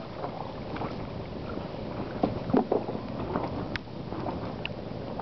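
Steady rushing noise of wind on the microphone, with a few soft knocks and clicks about two and a half seconds in.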